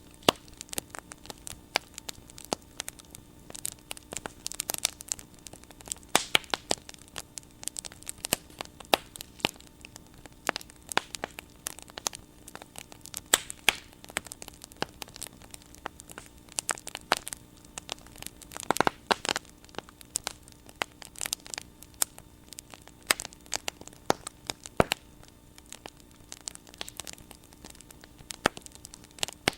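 Bonfire crackling, with frequent irregular sharp pops and snaps from the burning wood.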